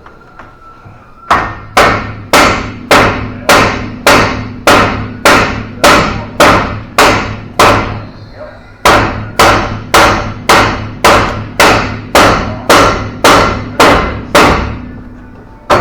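Hammer blows on metal, about two a second and evenly paced: a run of about a dozen, a pause of about a second, then another run of about a dozen.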